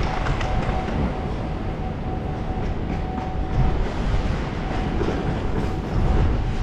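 Steady rumble of a train running through the station, with a thin steady whine that drops out for about a second in the middle.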